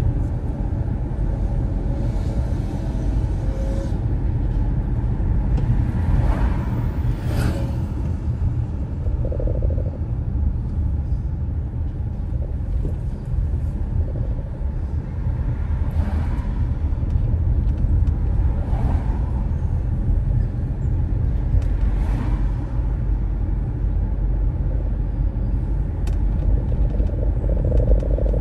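Car driving on city roads: a steady low rumble of engine and tyre noise, with a few short swishes.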